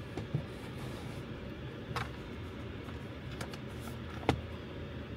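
Low steady background hum with a few faint clicks, the loudest about four seconds in.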